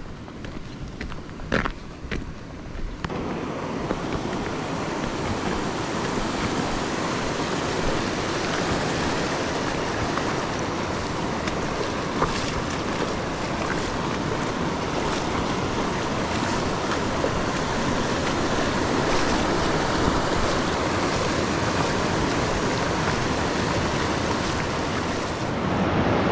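A few footsteps on a gravel road, then, from about three seconds in, the steady rush of a clear, shallow river running fast over rocks and small spills.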